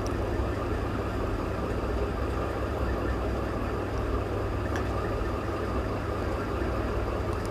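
Steady low mechanical hum with a constant hiss over it, unchanging throughout.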